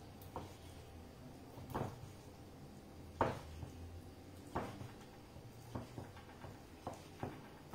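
Kitchen knife cutting cooked octopus on a wooden cutting board: a series of sharp knocks, the blade striking the board about once a second.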